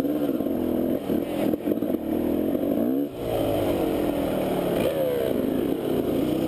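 Dirt bike engine running under throttle while riding, its pitch rising and falling with the revs. The engine drops off briefly about three seconds in, then climbs again.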